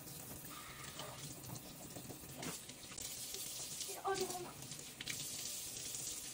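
Kitchen faucet running a steady stream, with water splashing over mushrooms in a metal colander and into the sink as they are rinsed by hand.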